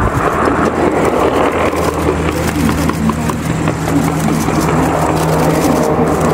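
Z-20 helicopter in flight: a steady low engine and rotor hum.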